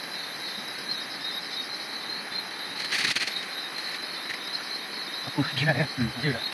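Steady chorus of insects trilling high and fast. A short rustling burst comes about three seconds in.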